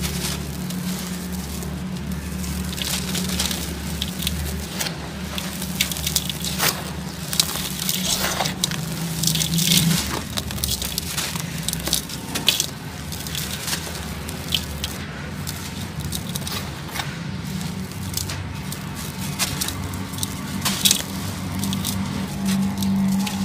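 Hands crushing and crumbling dry, dusty sand-cement chunks, a dense run of gritty crunches and crackles as grit and pieces fall into a metal basin. A low steady hum runs underneath.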